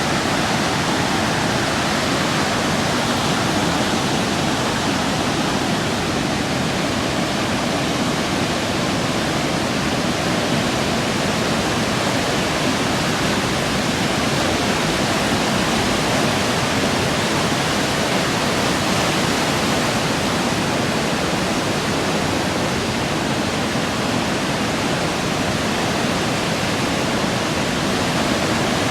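Floodwater rushing steadily: an even, unbroken noise with no change in level.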